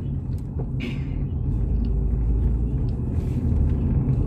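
Steady low rumble of a car driving, heard from inside the cabin, with a few faint ticks.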